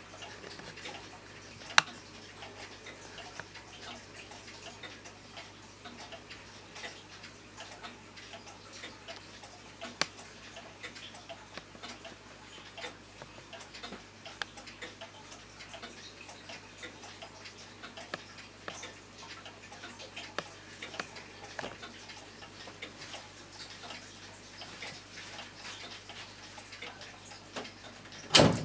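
German mahogany-cased grandfather clock ticking steadily. Two sharp clicks come about two and ten seconds in, and a louder knock follows near the end as a hand handles the clock's hood.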